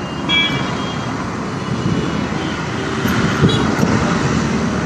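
Street traffic noise with a bus's engine running nearby, a steady din with a few brief faint high tones over it.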